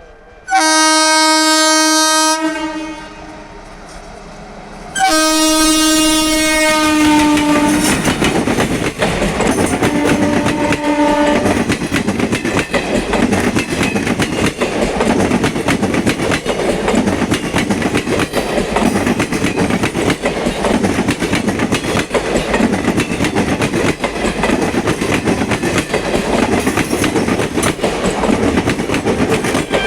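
Twin-tone horn of an Indian Railways WAP-4 electric locomotive blasting twice for about two seconds each, then once more, shorter and quieter. It is followed by the train passing close by: a loud, steady rumble with the clickety-clack of wheels over the rail joints.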